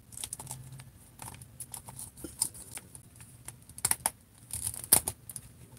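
Plastic joints of a Marvel Legends action figure clicking as its arms are worked. The clicks are irregular, with the loudest snap about five seconds in.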